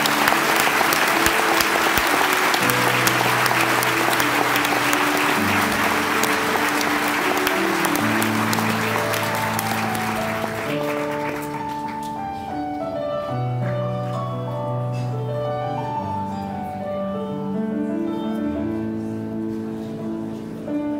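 Audience applauding, loud at first and dying away over about ten seconds. Instrumental music with piano-like notes comes in a few seconds in and carries on alone once the clapping has faded.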